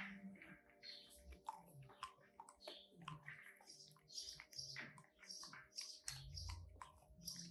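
English cocker spaniel crunching and chewing ice cubes, with irregular sharp crunches a few times a second.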